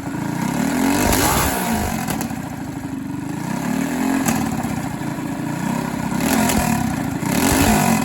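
Predator small single-cylinder engine revved up and let fall back, about three times, its pitch rising and dropping with each blip of the throttle.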